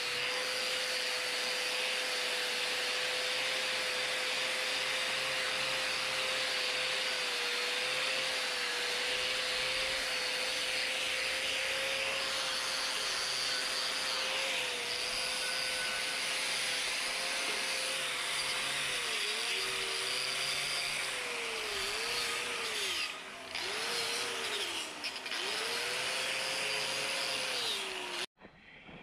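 Electric angle grinder running against the steel tube legs of a propane-tank fire pit, a steady high whine over a grinding hiss. In the second half the whine sags in pitch several times as the disc bogs under load. The sound cuts off just before the end.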